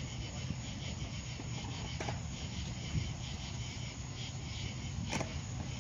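Crickets chirping in a steady chorus, over a low rumble, with two sharp clicks: one about two seconds in and one near the end.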